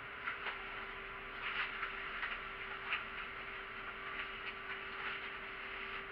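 Cabin noise of a city bus: a steady hum under a haze of noise, with scattered, irregular light clicks and rattles.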